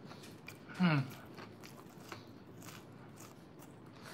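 Close-up chewing of a mouthful of burrito stuffed with Blue Heat Takis, the rolled chips giving small crisp crunches throughout. About a second in comes a brief vocal sound that falls quickly in pitch, the loudest sound here.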